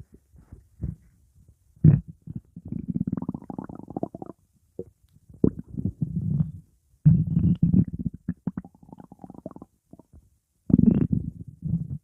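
Stomach growling and gurgling: several bouts of low, rapid bubbly rumbling, each lasting one to three seconds, with short quiet gaps between them.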